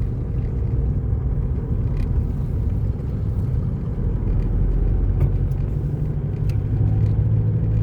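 Road and engine noise inside a moving car: a steady low rumble, with an engine hum that comes in about four seconds in and grows louder.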